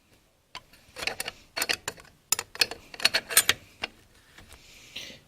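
Light metal clinks and clicks of steel plates and friction discs being handled and set into a 700R4/4L60 transmission input drum, coming in several quick clusters, with a soft scraping near the end.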